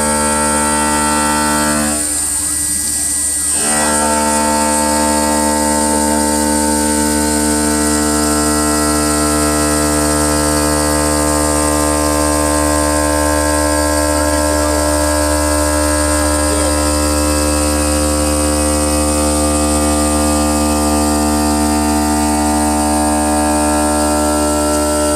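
CNC stone cutting and polishing machine running, its motors giving a steady, loud hum of many pitches. About two seconds in, part of the hum drops out for a moment and then comes back.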